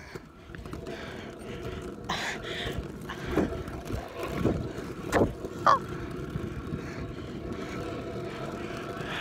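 Kick scooter wheels rolling over a concrete sidewalk: a steady rumble with a few sharp knocks.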